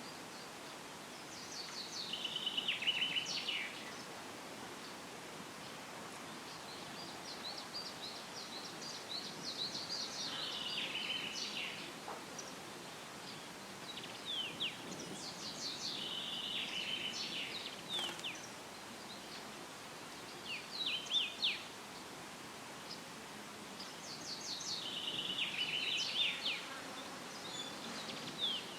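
A songbird repeating the same fast, trilled song phrase about four times. Each phrase steps down in pitch over two or three seconds, with a few shorter bursts of notes in between. Under it is a steady hiss of leaves rustling in a light breeze.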